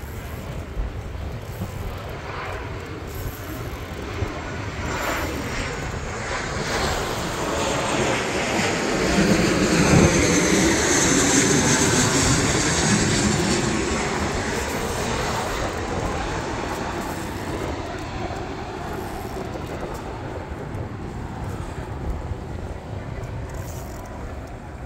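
An airplane flying over. Its engine noise grows to a peak about ten seconds in and then fades, falling in pitch as it goes by.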